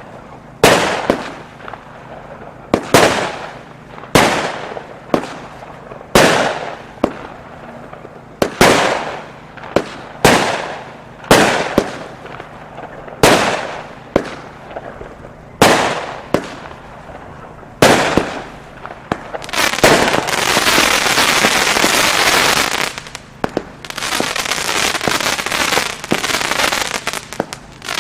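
Weco "London" firework going off: a run of sharp bangs, roughly one a second, each with a short fading tail. About two-thirds of the way in it turns into dense, continuous crackling, which breaks off briefly and then crackles on.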